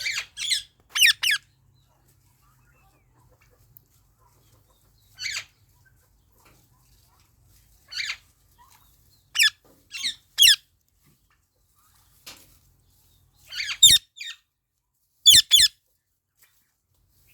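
Indian ringneck or alexandrine parrots giving short, shrill chirping calls in scattered bursts, a few seconds apart: a cluster at the start, then single calls, and pairs near the end.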